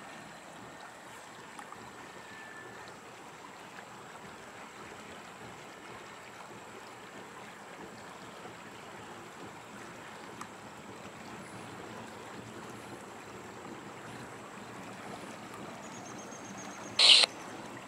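Slow freight train rolling steadily across a bridge, a constant rushing noise. A short, loud hiss breaks in once near the end.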